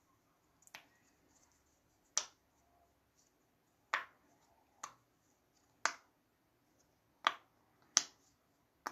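Silicone pop it fidget toy having its bubbles pressed, giving about eight sharp pops spaced unevenly, roughly one a second.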